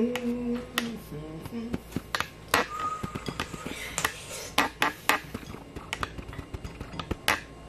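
Wooden food skewers clicking and clattering against each other and a metal tray as they are picked up and handled, in a string of sharp clicks. In the first second and a half there is also a short hummed voice sound.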